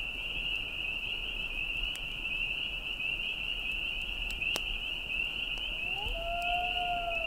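Night insects trilling in a steady, high chorus, with two sharp clicks partway through. About six seconds in, a gliding tone slides up and settles into a held note as ambient intro music begins.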